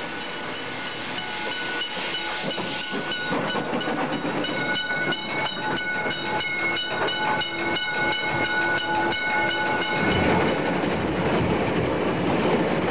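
Steam locomotive on the move, steam hissing and exhaust beating, with steady high ringing tones that cut off about ten seconds in, after which a deeper running noise takes over.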